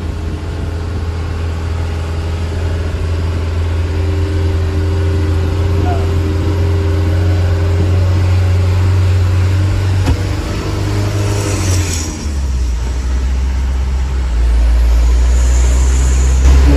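Truck engine running, heard from inside the cab while driving at low speed: a steady low drone that drops in pitch about twelve seconds in and then grows louder, with a brief hiss just before the change.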